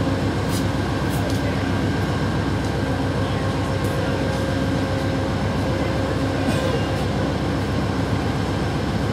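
Steady low rumble and constant hum of an approaching diesel locomotive, still far off, with no change in pitch or loudness.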